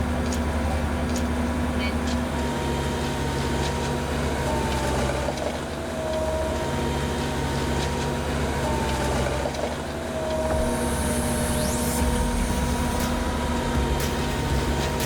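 Heavy machinery running, likely a railway tie replacement machine: a steady low engine drone with a steady whine above it that dips slightly in pitch now and then.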